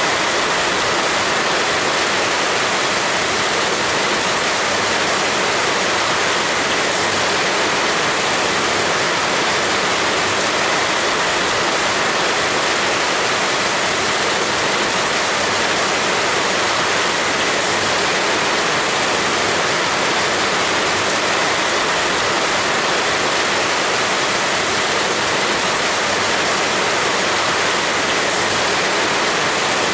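Heavy rain falling in a steady, even downpour with no breaks.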